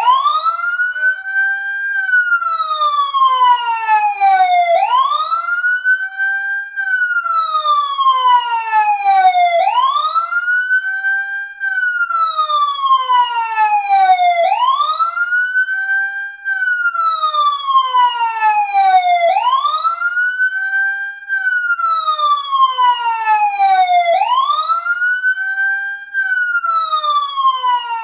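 Fire truck siren wailing: the pitch climbs quickly, then falls slowly, repeating about every five seconds, about six times in all.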